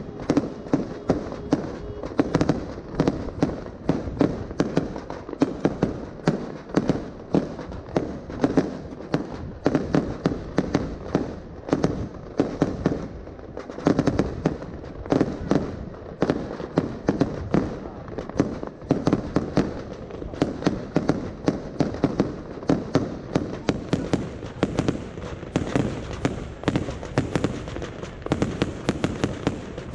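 Aerial fireworks display: a rapid, unbroken string of bangs and crackles from bursting fireworks, several a second.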